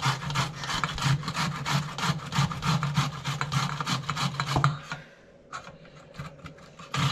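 Carrots being grated by hand on a metal grater: quick rasping strokes, about three a second, that stop about five seconds in, with a few more strokes near the end.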